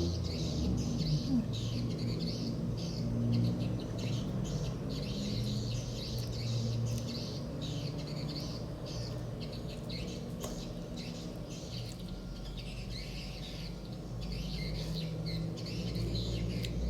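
Close-miked chewing of baked chocolate brownie: a rapid, irregular stream of wet mouth clicks and smacks.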